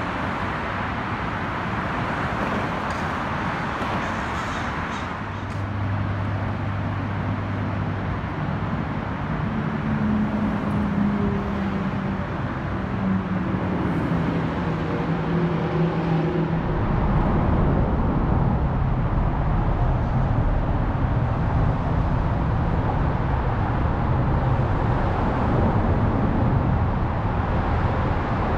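Road traffic noise: a steady rush of passing vehicles, with an engine's hum stepping up and down in pitch through the middle, and a heavier low rumble in the latter half.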